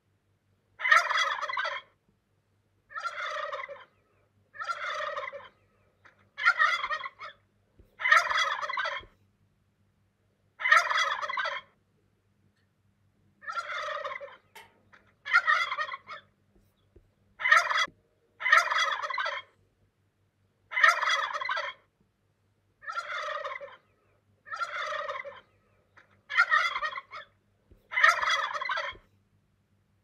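Tom turkey gobbling: short, rapid warbling gobbles repeated about once every two seconds, some fifteen in all.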